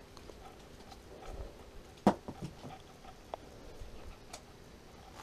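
A fishing line being pulled in by hand through a hole in the ice: faint rustling handling noise, with one sharp knock about two seconds in and a couple of lighter ticks after it.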